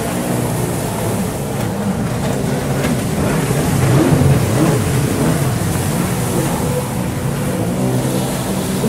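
Racing jet ski engines revving, their pitch rising and falling as the throttle is worked, loudest about halfway through.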